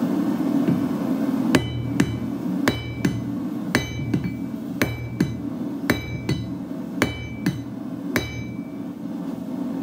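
Square-faced hammer striking a red-hot railway spike held in tongs on an anvil, drawing out and thinning the steel. About thirteen ringing metal-on-metal blows come in quick pairs, roughly one pair a second; they start about a second and a half in and stop near the end.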